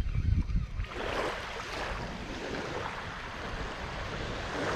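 Small waves washing onto a sandy beach: a hissing wash starts about a second in and swells again near the end. Wind rumbles on the microphone at the start.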